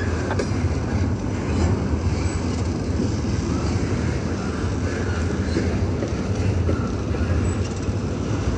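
Double-stack intermodal freight train's loaded well cars rolling past, a steady rumble of steel wheels on rail.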